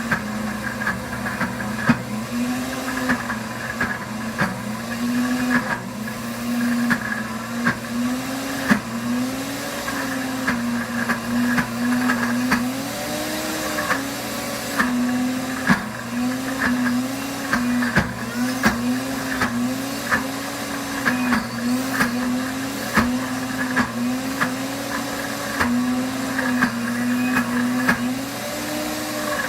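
Pampered Chef Deluxe Cooking Blender running on its grind setting, grinding peanuts into peanut butter as the paste turns creamy. The motor's pitch keeps rising and dipping, with short sharp knocks every second or so.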